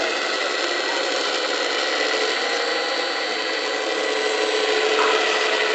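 Small electric motor and hydraulic pump of a 1:14.5 scale RC CAT 345 D excavator whining steadily as the arm and bucket move, a little louder near the end.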